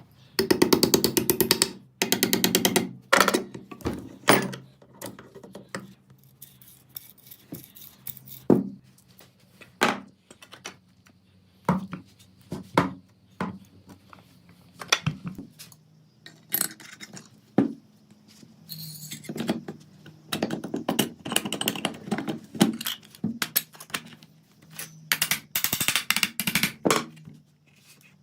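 Hand work on small metal parts: irregular clicks and knocks, with a few short rasping runs, the longest about half a second in and again near the end.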